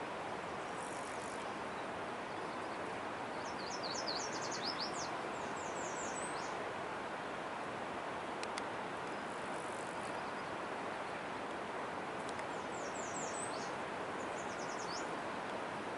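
A songbird sings two quick series of short, high, downward-sliding notes, one a few seconds in and another near the end, over a steady rushing background noise.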